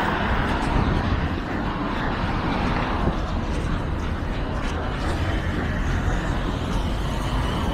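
Steady city street noise of traffic running past, the upper hiss easing off about three seconds in.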